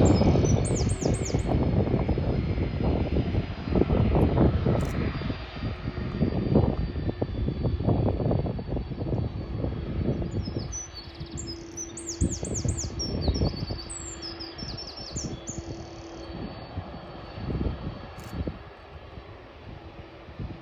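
Boeing 767 freighter's jet engines rumbling with a ragged crackle as it climbs away, fading out over about ten seconds. A small bird chirps briefly near the start and again in a run of quick chirps later on.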